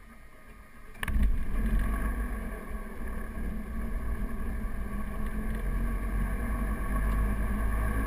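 One piston engine of a Piper Navajo starting up: a click about a second in, then the engine catches and runs with a steady low rumble that slowly grows louder.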